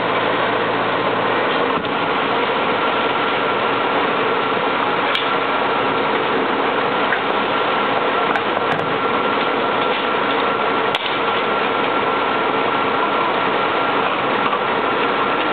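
Loud, steady mechanical drone of a fire engine running at the scene, its engine and pump going continuously, with a faint steady whine on top.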